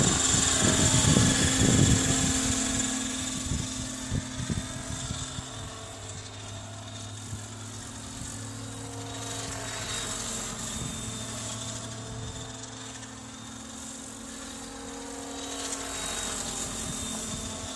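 Henseleit TDR radio-controlled helicopter flying funnels: a steady rotor and drivetrain drone with a couple of held tones, swelling and fading as it circles, plus an odd noise during the funnels that the owner can't account for. Heavy low rumbling buffets the microphone for the first two seconds.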